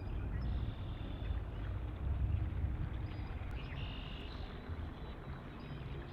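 Low, steady rumble of outdoor noise on the microphone, with a few faint bird calls now and then.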